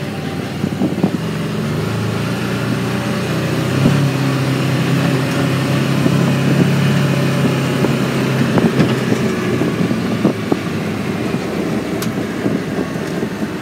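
Engine of a vehicle running steadily as it is driven around the farm, louder through the middle of the stretch.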